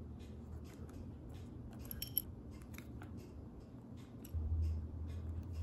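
Rapid small clicks and ticks of a Samsung Gear S3 Frontier smartwatch being worked on by hand: the rear case being seated and its tiny screws driven in with a precision screwdriver. One sharper, ringing metallic click comes about two seconds in, and a low rumble joins after about four seconds.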